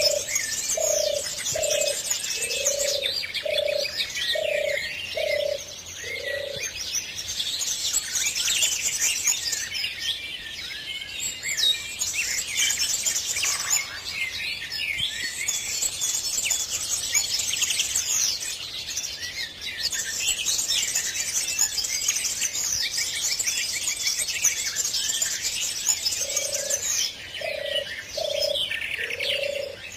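Dense chorus of small birds chirping and trilling, with a series of about eight low, evenly spaced cooing notes at the start and again near the end.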